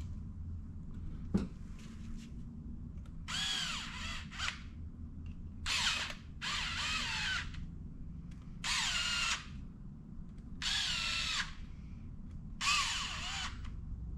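A cordless drill/driver running screws into the carburetor in about six short bursts, its motor whine rising and falling with each trigger pull. There is a sharp click about a second in.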